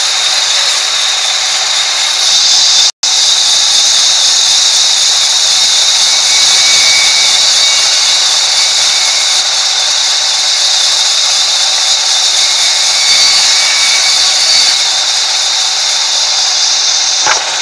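Sawmill band saw cutting through a log: a loud, steady, high-pitched hiss of the blade in the wood. The sound cuts out for an instant about three seconds in.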